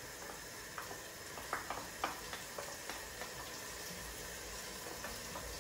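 A tomato, onion, garlic and pepper base with white wine and tomato paste simmering in the pot: a steady soft hiss with a few small pops and ticks.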